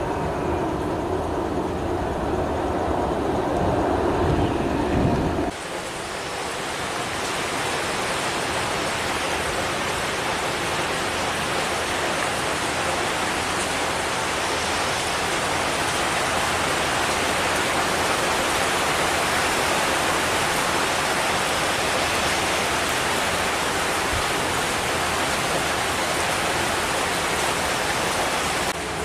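Low rumble of the Gulfstream G450's jet engines during its landing roll, cut off abruptly about five seconds in. After that comes a steady hiss of heavy rain.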